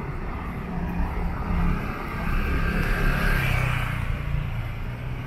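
A motor vehicle's engine passing close by on the street. It hums steadily, grows louder toward the middle and eases off near the end.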